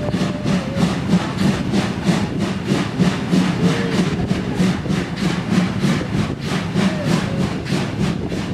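Steam locomotive chuffing at running speed, an even rhythm of about three exhaust beats a second, over the running noise of the train on the track.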